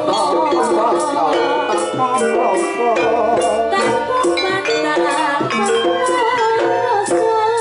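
Jaranan music played by a live Javanese ensemble: a rattling percussion pattern with drum strokes under a wavering melody line that plays continuously.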